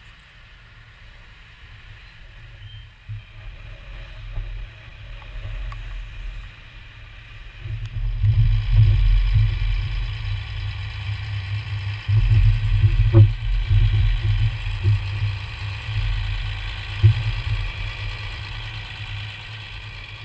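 Linde forklift engine running close by, a low rumble that grows louder about eight seconds in and surges twice as the machine works, with a few short clunks in between.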